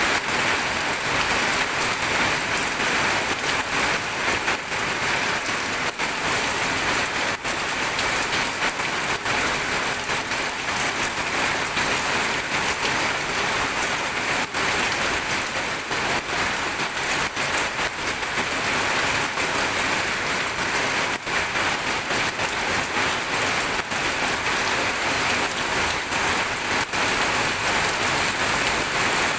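Steady rain falling on a surface, a dense even hiss with many small drop impacts.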